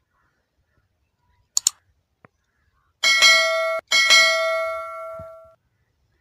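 Subscribe-button overlay sound effect: a mouse click, then a bell notification chime that rings twice, the second ring fading out over about a second and a half.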